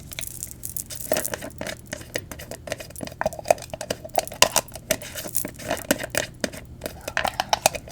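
Irregular, quick clicks and taps of hands handling a deep-conditioner container, working at its lid to get it open.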